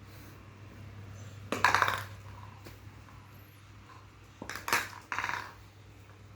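A young girl coughing: one short harsh cough about a second and a half in, then two more close together near the end, over a low steady hum.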